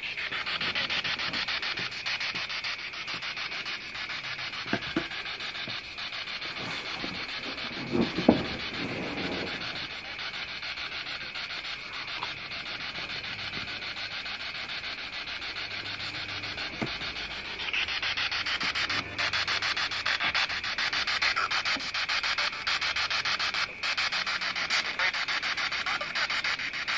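SB7 spirit box sweeping through FM radio stations: a steady, choppy rasp of static. A brief louder fragment comes about eight seconds in, and the static grows louder and brighter about two-thirds of the way through.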